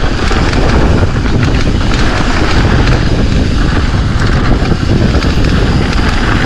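Hardtail mountain bike tyres rolling fast over snow and frozen dirt, a loud, steady rushing noise, with wind buffeting the microphone and small knocks from the bike over the rough trail.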